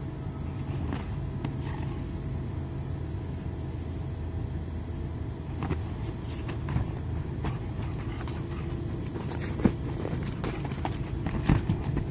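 Steady hum of an inflatable bounce house's electric air blower, with scattered soft taps and thumps of a Dogue de Bordeaux puppy's paws on the inflated vinyl, more of them in the last few seconds.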